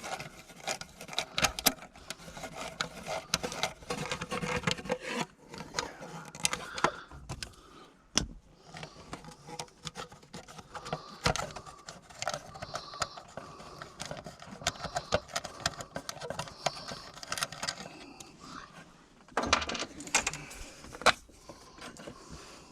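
Scattered clicks, taps and scraping from hands working wiring and small parts behind a truck's dash, with a louder cluster of clicks near the end.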